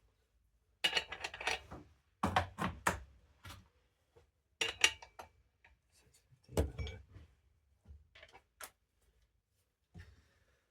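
Small hard objects, tools or parts, clinking and clattering as they are handled, in several short bursts with pauses between.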